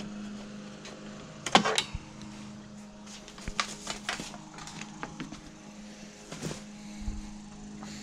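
Scattered clicks and knocks from a battery tender being unplugged and its cable handled. A steady electrical hum runs underneath. The loudest knocks come about a second and a half in.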